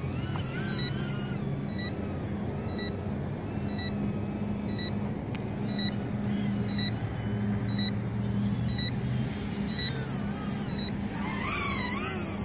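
Brushless motors and propellers of a small FPV racing quadcopter whining in flight, the pitch rising and falling with throttle, over a low steady hum. A short high beep repeats about once a second throughout.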